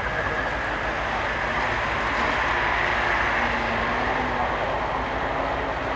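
Engine of a modified off-road competition vehicle running hard under load as it drives through deep snow.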